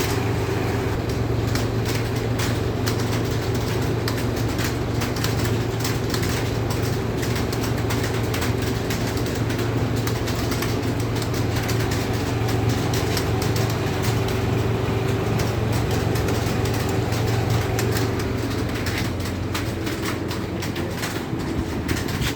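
Many computer keyboards being typed on at once, a dense continuous clatter of key clicks, over a steady low hum.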